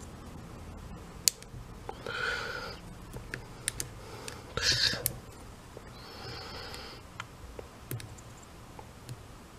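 Small clicks, ticks and scraping handling noise as the brush card and spring-loaded carbon brushes are fitted back over the commutator of a Milwaukee impact driver's motor. Three short scraping rustles come about two, four and a half, and six seconds in, with sharp ticks between them.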